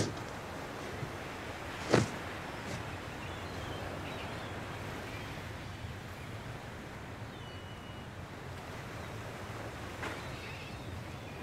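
Seaside ambience: a steady wash of sea and wind, with one sharp knock about two seconds in and a few faint bird calls.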